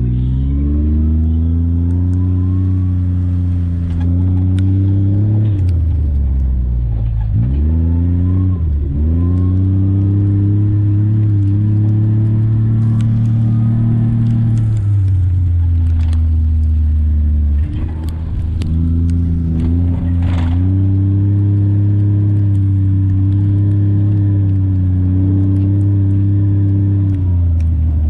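ATV engine running as the machine is driven, its pitch rising and falling with the throttle and easing off sharply a few times before picking up again, with occasional light clicks and rattles.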